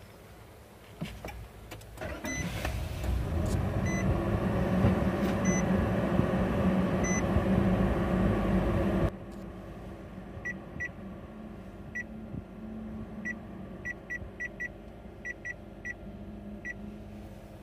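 Nissan Dayz kei car's three-cylinder engine started with the push button and running steadily, heard inside the cabin, with a warning chime repeating about every second and a half. About nine seconds in the sound drops suddenly much quieter to a low hum, and short beeps follow at irregular intervals.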